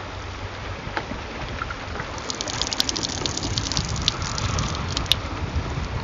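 Water poured from a plastic bottle into the small white body of an Airspresso espresso maker, splashing in a fine, crackling stream that starts about two seconds in and grows louder. Wind rumbles on the microphone throughout.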